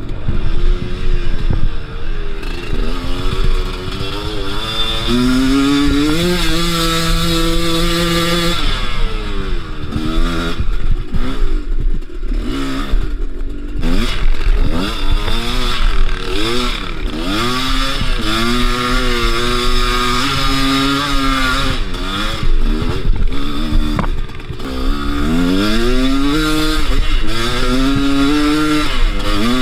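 Two-stroke Kews enduro motorcycle engine being ridden off-road, its revs rising and falling constantly with the throttle. It holds a steady high rev for a couple of seconds about a quarter of the way in and climbs sharply again near the end.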